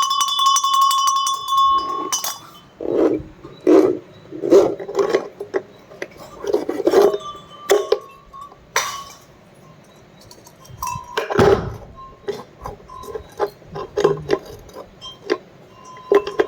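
Rustic cowbell shaken, its clapper clanking fast against the body and ringing for about two seconds. Then a run of irregular knocks and clinks, with the bell's ring coming back faintly now and then in the second half.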